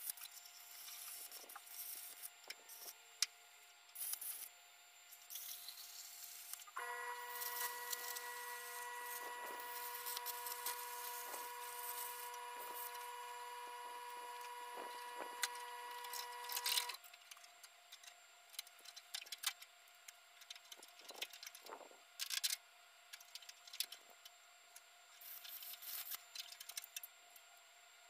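Welder laying short tacks of weld on car body sheet metal, with irregular crackling bursts during the first several seconds and again over the last ten. For about ten seconds in the middle a steady pitched hum runs instead.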